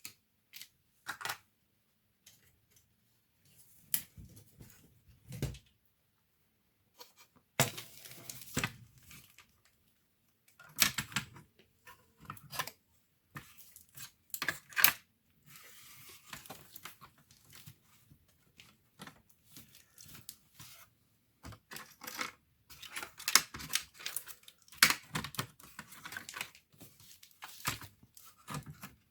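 Hands working on an opened laptop: irregular sharp clicks, taps and short scraping and rustling noises of small plastic and metal parts being handled, with quiet gaps between them.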